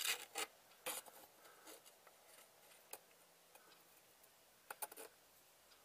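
A few light metallic clicks and taps as a steel file and knife are handled, a cluster near the start and another pair about five seconds in, over faint room tone.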